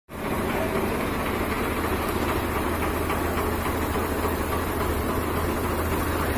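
Diesel tractor engines running steadily with a low, even hum, a Swaraj 855 and a second tractor chained together for a tochan tug-of-war pull.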